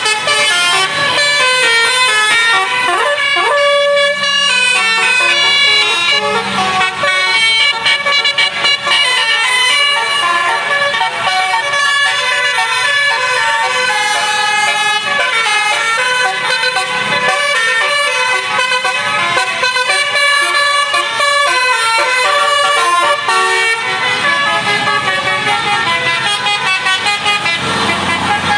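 Tour buses' telolet "basuri" multi-tone horns playing loud melodies in quick stepped notes, several tunes overlapping, over road-traffic noise.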